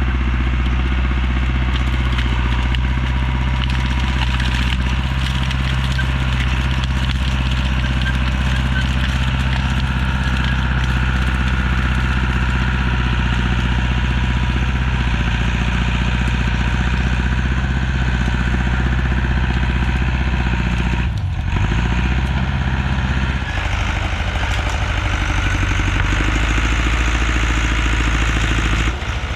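Diesel engine of an Allis-Chalmers dozer running steadily while clearing brush, with a brief dip and recovery in engine speed about two-thirds of the way through.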